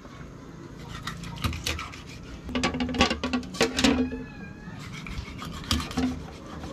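Kitchen knife cutting a barracuda into steaks on a cutting board: irregular scraping, sawing strokes and knocks of the blade on the board, busiest from about two and a half to four seconds in.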